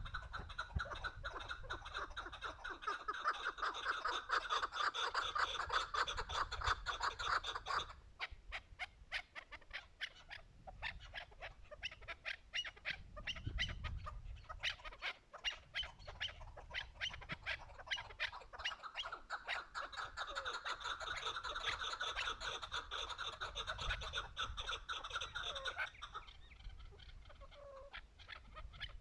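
Chukar partridges calling: long runs of rapid clucking notes. They are loudest for the first eight seconds, fainter for a while, then loud again from about twenty to twenty-six seconds in.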